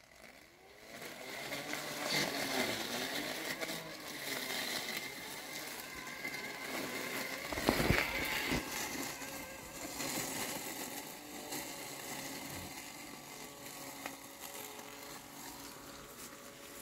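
Landxcape 790 robotic lawn mower's blade motor spinning up with a rising whine, then running steadily as the mower drives and cuts through tall, wet weeds, with a brief louder clatter about halfway through.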